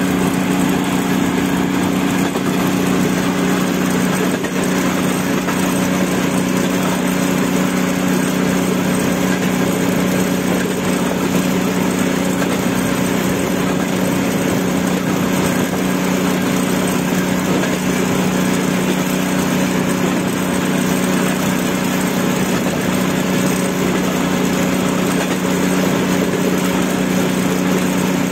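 Railway motor trolley's engine running steadily while the trolley travels along the track at speed: a constant low engine drone over a steady rushing noise, with no change in pitch.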